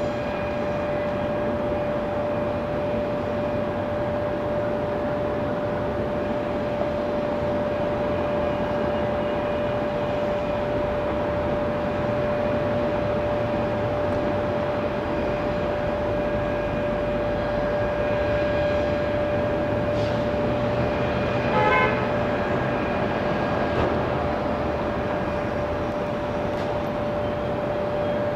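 Jet aircraft taxiing in the distance: a steady hum with one constant mid-pitched whine. A short horn toot sounds about three-quarters of the way through.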